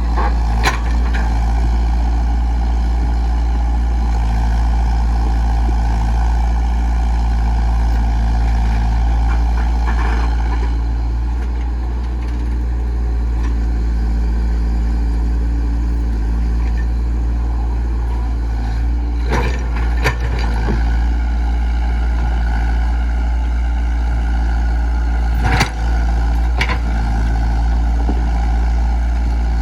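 Komatsu PC68 excavator's diesel engine running steadily, with a few sharp knocks, one near the start and two pairs close together in the latter part.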